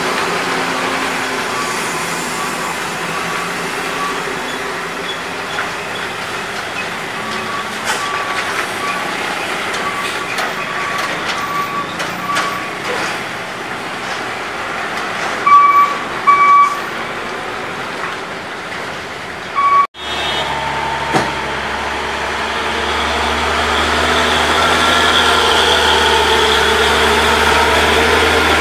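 Heavy diesel trucks climbing a steep hairpin bend, engines running under load, with a string of short high beeps and two short horn blasts about halfway. After a break, a truck's diesel engine runs close by, low and steady, growing louder near the end.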